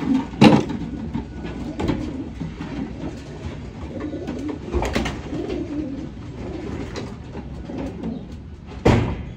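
A flock of racing pigeons cooing continuously in a loft, with several sharp sudden sounds, the loudest about half a second in and near the end.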